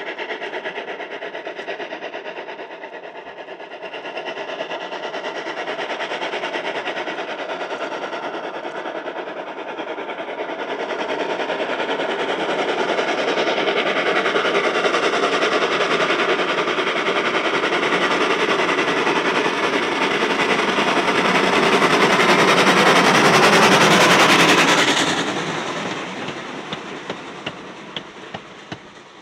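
LBSCR Terrier 0-6-0T steam tank locomotive working a short train of vintage carriages towards and past the listener. Its exhaust and running gear grow steadily louder, peak and then drop away suddenly about four seconds before the end. A few sharp clicks of wheels over rail joints follow as the carriages go by.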